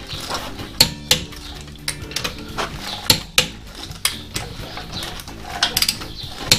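Click-type torque wrench clicking as wheel nuts are torqued down, each click marking the set torque of 140 Nm reached, with metal clinks from the socket on the nuts. Sharp clicks come in pairs about a second in and again around three seconds, then several close together near the end.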